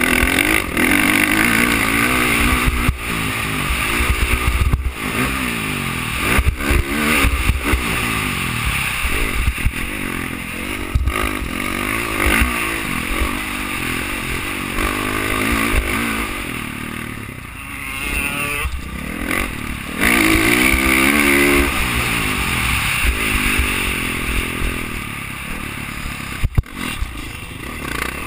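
Dirt bike engine revving up and down as the bike is ridden hard on a motocross track, with the pitch climbing and dropping repeatedly through the gears. Heavy wind buffets the helmet-mounted microphone underneath.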